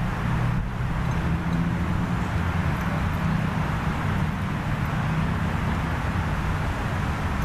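Steady low rumble of road traffic, with no barks or other distinct sounds standing out.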